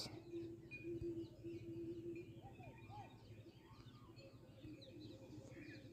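Faint background bird chirping: many short, quick chirps, with a low steady hum in the first two seconds.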